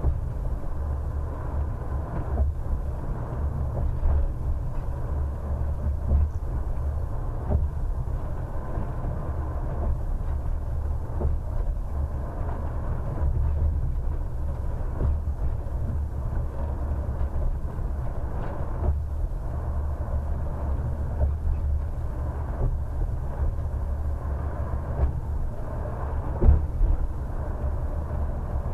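Bus driving at steady speed, heard from inside the driver's cab: a steady low rumble of engine and road noise, with scattered light knocks and rattles and one louder knock near the end.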